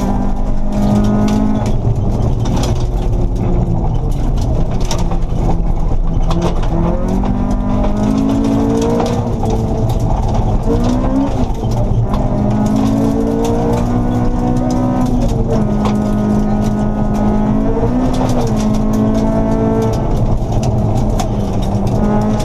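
Honda Civic rally car's engine heard from inside the cabin, revving up and dropping back again and again as it is driven hard, over a steady rumble of tyres on gravel and sharp ticks of stones hitting the car.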